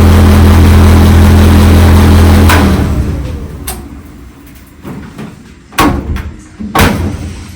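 Whirlpool clothes dryer running with a loud, steady hum, then switched off about two and a half seconds in and winding down. A few sharp knocks follow, one about three and a half seconds in and two more near the end.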